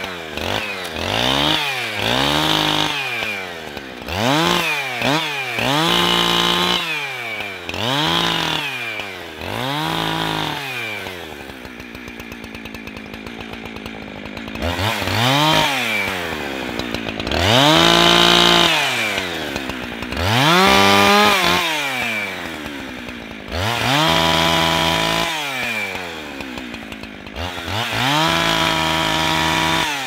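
Two-stroke chainsaw cutting branches off a felled conifer. It revs up and drops back in quick short cuts, settles to a low idle for a few seconds about a third of the way in, then is held at high revs for longer cuts.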